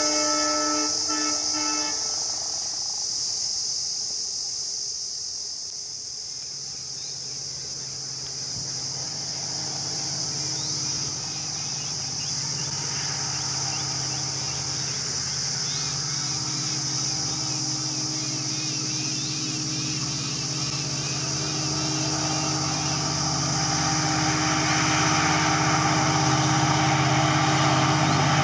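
A diesel locomotive's horn sounds and cuts off about two seconds in. Then the low drone of the approaching diesel engine builds steadily, louder toward the end, under a constant high hiss with some chirping in the middle.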